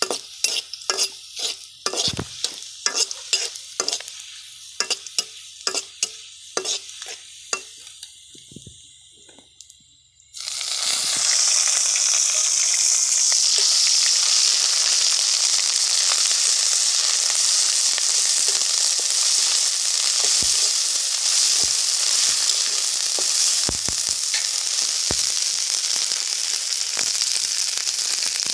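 A utensil stirring and scraping in a pan with quick, repeated clicks that thin out. About ten seconds in, a loud, steady sizzle starts abruptly, the sound of food, likely the small fish, going into hot oil and frying.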